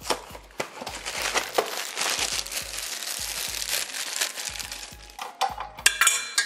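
Plastic inner bag of boxed cake mix crinkling as it is opened and the dry mix is poured into a steel mixing bowl: a dense rustle for about four seconds, then a few sharper knocks near the end.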